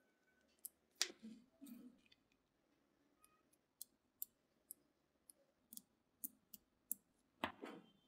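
Small magnetic balls clicking against each other as fingers pull apart and press together a cluster of them: scattered sharp single clicks, with a brief clatter about a second in and a louder one near the end.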